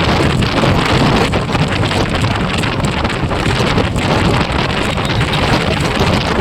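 Loud, steady wind noise buffeting the microphone of a motorcycle rider's camera at speed.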